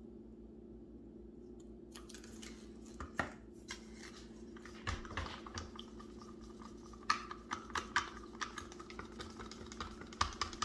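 Irregular light clicks, taps and scrapes of paint cups and mixing tools being handled, starting about two seconds in, over a steady low hum.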